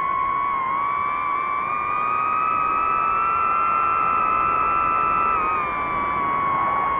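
FPV quadcopter's motors and propellers whining steadily in flight, the pitch rising slightly and then dropping a little about five and a half seconds in.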